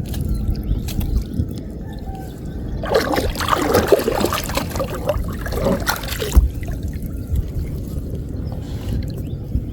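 Water splashing and dripping as a gill net is lifted from floodwater, heaviest for about three seconds in the middle. A low, steady rumble sits underneath throughout.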